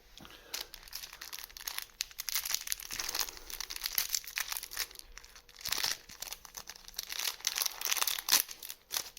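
Foil trading-card booster pack wrapper being crinkled and torn open by hand, an irregular run of crackles and rustles.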